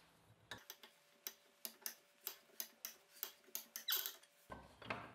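Threaded insert being screwed into a wooden holdfast arm with a hex key: a run of faint, sharp clicks about three a second as the key is turned and reset. Near the end there is a louder stretch of handling noise.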